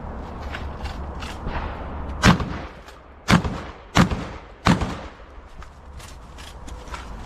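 Four loud gunshots from a competitor shooting a practical-shooting stage. The first comes about two seconds in and the other three follow about two-thirds of a second apart, with fainter sharp cracks scattered around them.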